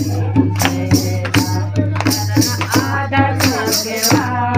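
Women singing a devotional bhajan together in a kirtan, with hand claps and jingling percussion keeping a steady beat, over a steady low hum.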